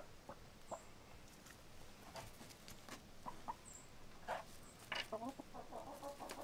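Rhode Island Red chickens clucking quietly, short scattered clucks that become busier near the end.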